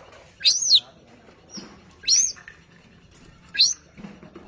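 Caged long-tailed shrike (cendet) singing: three loud whistled calls about a second and a half apart, each sweeping sharply up in pitch and falling back.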